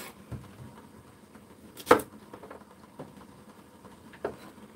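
Kitchen knife cutting a carrot on a wooden cutting board: a few separate knocks of the blade on the board, the sharpest about two seconds in.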